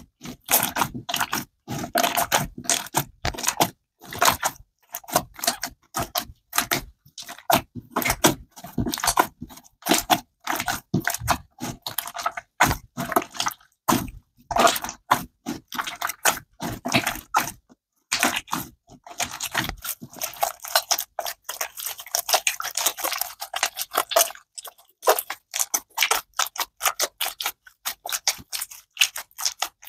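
Blue glue slime being kneaded and squeezed by hand: a dense, irregular stream of wet squishing clicks and pops.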